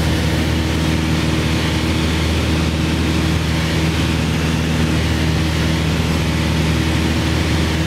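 Piper PA-28 light aircraft's piston engine and propeller droning steadily, heard from inside the cabin in level cruise.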